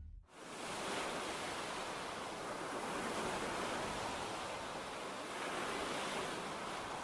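Steady wash of wind and small waves on the shore, an even hiss with no distinct strokes after background music cuts off right at the start.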